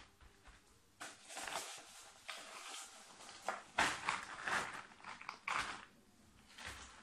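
Rustling and scraping of a black plastic plant pot and loose potting soil being handled over a plastic tray while a plant is eased out of its pot for transplanting. The irregular scuffs and crumbles start about a second in and are loudest a little past the middle.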